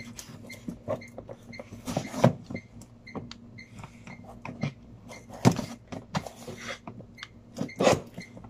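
Butter knife cutting through the tape on a cardboard box, with irregular scraping, cardboard rustling and sharp knocks as the box is handled; the loudest knocks come about two, five and a half, and eight seconds in.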